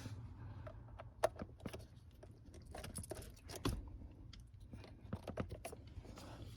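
Scattered small plastic clicks and taps as automotive relays are pulled from a Honda MICU fuse box and pressed into the replacement box, with a sharper click about a second in and another a little past three and a half seconds.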